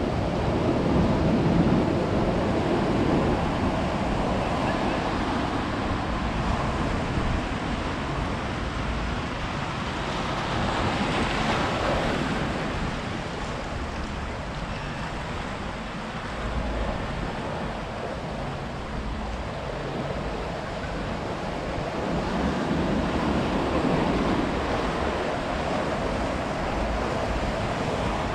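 Ocean surf breaking and washing up a beach, rising and falling in slow swells about every ten seconds, with a hissing wash near the middle.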